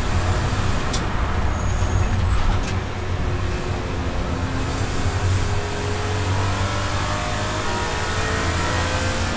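BMW 325i's straight-six engine heard from inside the cabin, running at high revs. From about halfway its note rises steadily as the car accelerates hard in gear. A few faint clicks come about a second in.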